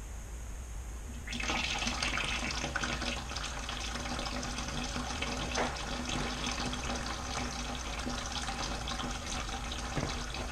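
Water starts running about a second in and keeps flowing steadily through a homemade clear-tube transmission cooler mockup, splashing out into a plastic bucket below.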